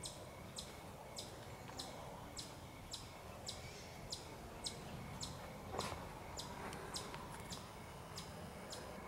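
A chipmunk chipping: short high-pitched chirps repeated steadily about twice a second, the alarm call a chipmunk gives with predators close by.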